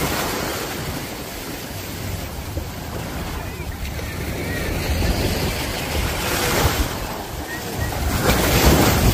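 Small waves breaking and washing in shallow surf, with wind buffeting the microphone. Near the end, a splash as a thrown cast net lands on the water.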